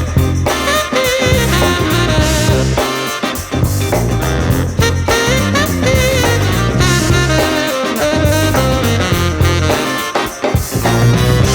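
Instrumental funk-pop music: a horn section with saxophone plays over bass and a drum kit.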